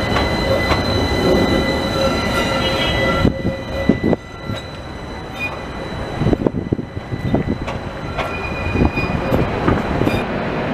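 AnsaldoBreda Sirio low-floor trams on curved street track. For the first three seconds a tram's wheels squeal steadily as it rounds the curve. After that it is quieter, with knocks and clacks from the wheels on the rails as another tram rolls in, and short squeals again now and then.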